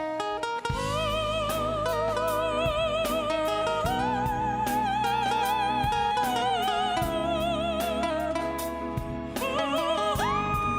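Music: the instrumental interlude of a slow pop ballad. A lead line holds long notes with wide vibrato over a backing with regular drum hits, and slides up near the end.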